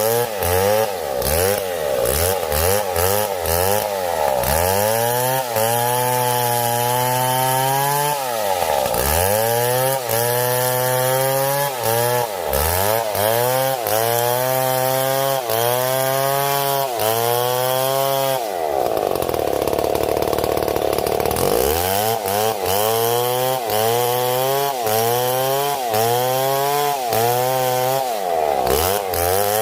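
STIHL MS 070 two-stroke chainsaw cutting through a heavy tree trunk. Its engine note sags in pitch and recovers again and again, about once a second, as the chain bites into the wood. A little past the middle the note drops out for a few seconds into a steady rush, then the same cutting rhythm resumes.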